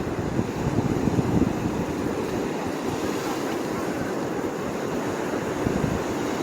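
Surf washing onto a beach as a steady hiss, with wind rumbling on the microphone.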